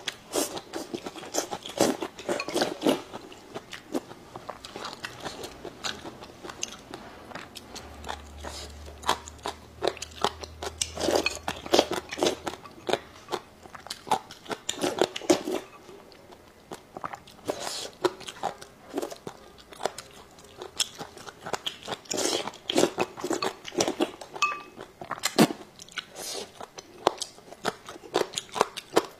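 A person chewing crisp food close to a clip-on microphone, with irregular crunches and bites, starting with a mouthful of green vegetables.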